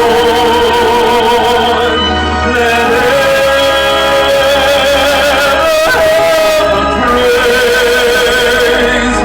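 Singing with long held notes and a wavering vibrato, over a steady low musical backing.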